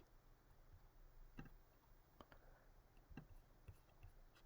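Near silence with a few faint computer mouse clicks, scattered and irregular.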